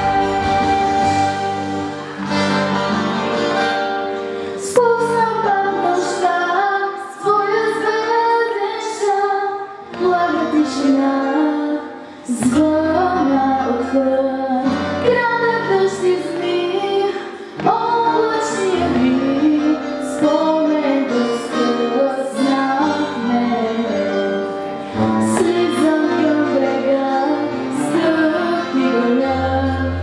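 A young girl singing a ballad through a microphone over instrumental accompaniment, with long held, gliding notes.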